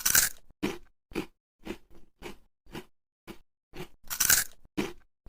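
A person biting into and chewing a crunchy snack. Two loud crunching bites come about four seconds apart, with steady crunching chews about twice a second between them.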